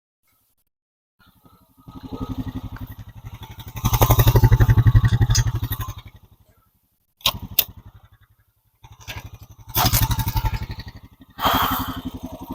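A small gasoline engine running and revving in short stretches, loudest about four to five seconds in, with abrupt stops between. Two sharp clicks come in the gap.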